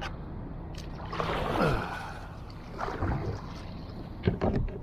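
Water splashing and swishing against a plastic kayak's hull, with two louder swishes, then a few sharp knocks near the end.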